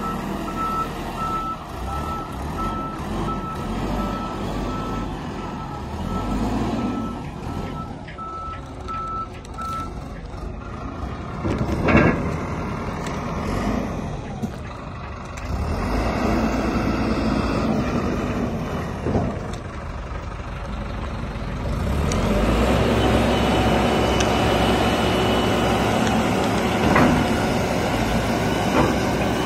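Shanmon 388H backhoe loader's diesel engine running as it drives, its reversing alarm beeping steadily for roughly the first ten seconds. A few sharp knocks come in the middle, and the engine grows louder and steadier about two-thirds of the way through as the front loader bucket is raised.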